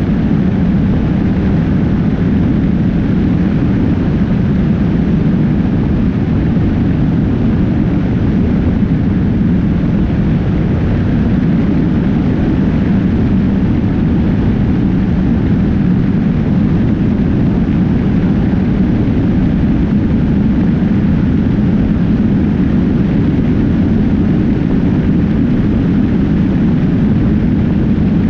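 Motorcycle at highway speed: a steady, loud rush of wind on the bike-mounted camera's microphone, mixed with road and tyre noise.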